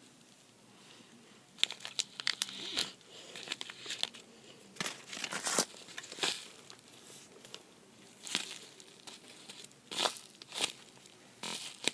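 Crinkling and rustling of something being handled, in short irregular bursts of varying strength.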